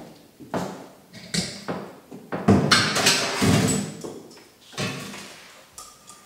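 Kitchen handling sounds: a string of knocks and clatters as dishes and utensils are picked up and set down on a countertop, with a louder run of rattling about two and a half seconds in.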